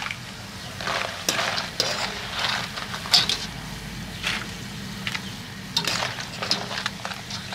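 Corn tortilla pieces sizzling as they fry in hot oil in a stainless steel pan, with a wire skimmer scraping and clinking against the pan now and then as the pieces are stirred and lifted out.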